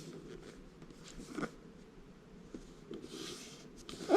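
Faint handling of a cardboard toy box: a short rustle about a second and a half in, a soft scraping rustle around three seconds in, and a few light taps.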